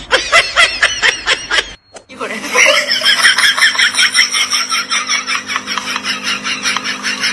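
Human laughter in rapid bursts, cut off briefly about two seconds in, then a longer run of fast, even laughing.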